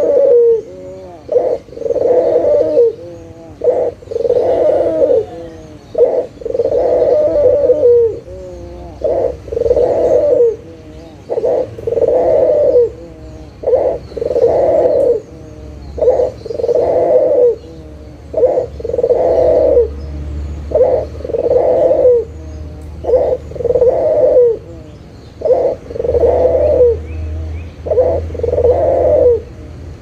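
Ringneck dove (puter, Barbary dove) cooing over and over. Each call is a short note followed by a longer low coo, and the calls repeat about every two and a half seconds.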